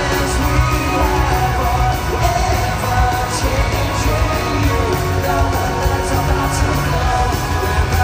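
Pop-punk band playing live in an arena: drums, electric guitars and bass under a sung lead vocal, loud and steady.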